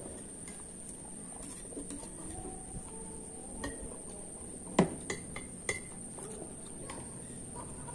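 Tableware clinks while eating: chopsticks tapping ceramic bowls and a drinking glass set down on the table, with a handful of sharp knocks between about three and a half and seven seconds in, the loudest just before the five-second mark.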